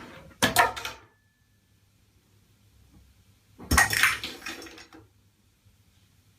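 Two clattering crashes of hard objects, like dishes or metal ware falling, about three seconds apart, the second longer and with some ringing.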